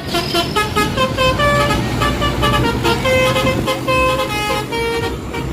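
Bus telolet horn (Basuri type) playing a quick tune of changing notes, over a low engine rumble.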